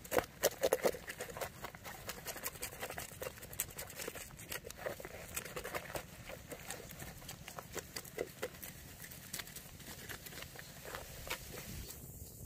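Irregular sharp clicks and crackles, densest and loudest in about the first second, then sparser and fainter.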